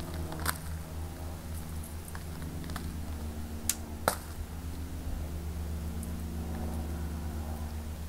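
Soil being worked on a plastic tarp with a garden tool: three sharp clicks, one about half a second in and two close together about four seconds in, over a steady low motor hum.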